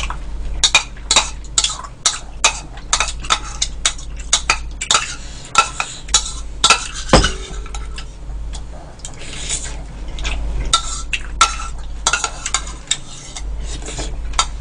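Metal spoon clinking and scraping against a ceramic bowl as soup is scooped up and eaten, in a run of irregular light clinks. One louder knock with a brief ring comes about seven seconds in.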